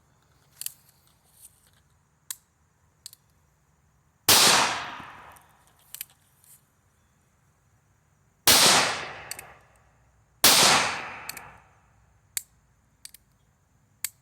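Three gunshots from a North American Arms .22 Magnum mini revolver, each a sharp crack with a trailing echo: one about four seconds in and two close together near the two-thirds mark. Quieter sharp clicks fall between the shots.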